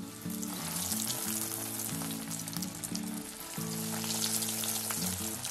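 Breaded chicken cutlets deep-frying in hot oil: a steady sizzle with fine crackling, over soft background music.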